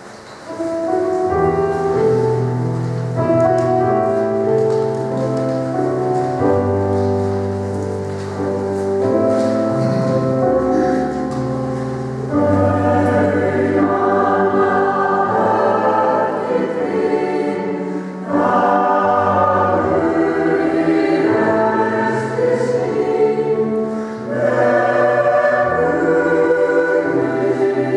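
Mixed church choir singing an Icelandic hymn with piano accompaniment, in sustained, slow-moving chords; it grows fuller and louder about twelve seconds in.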